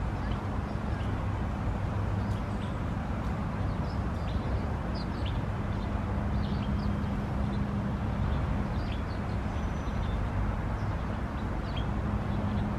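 Steady low rumble of distant traffic with a faint hum, and scattered short, high chirps of small birds.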